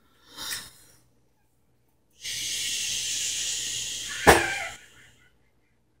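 Butane torch lighter hissing steadily for about two and a half seconds as a cigar is lit, with a short sharp crack about four seconds in.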